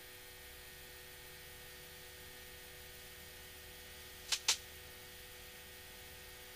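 Faint steady electrical hum, with two short clicks close together about four and a half seconds in. No engine noise comes through, even though the plane is on its takeoff roll, which suggests the sound is the cockpit intercom feed with its squelch closed.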